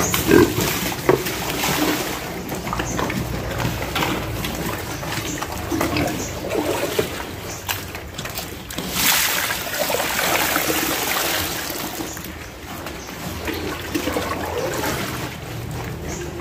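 A group of piglets slurping and lapping soaked bran mash from a trough, an irregular wet splashing and sloshing, with a couple of sharp knocks in the first second or so.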